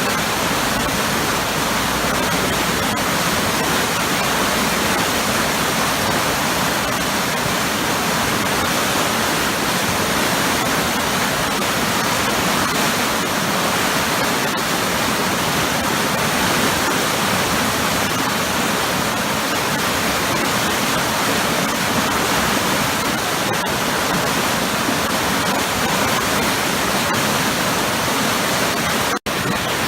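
Powerful waterfall: a steady rush of falling, churning water. The sound cuts out for an instant about a second before the end.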